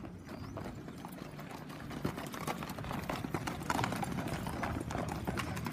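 Horse hooves clopping on stony dirt ground, getting louder from about two seconds in as a horse passes close by.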